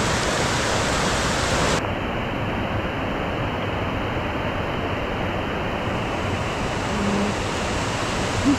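Waterfall on a river in full spate: a loud, steady rush of falling water that turns duller about two seconds in.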